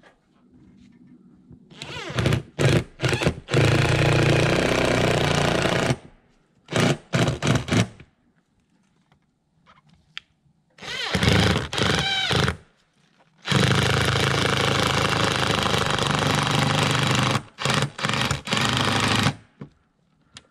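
Cordless drill/driver driving roofing screws through the metal base of a rubber chimney flashing boot into a steel roof panel. It runs in short trigger taps and then longer runs of a few seconds as each screw goes in, about three times over, with pauses between.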